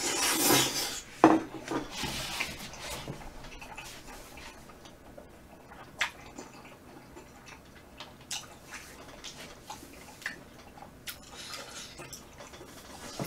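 Close-miked mukbang eating: a loud slurp of flat glass noodles at the start, a sharp click of chopsticks against the bowl about a second in, then quiet chewing with scattered small clicks of chopsticks and dishes.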